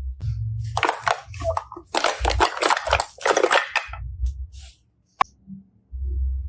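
Slime being pressed and worked by hand, giving irregular bursts of crackly, squelching noise with dull low thuds, and a single sharp click a little after five seconds in.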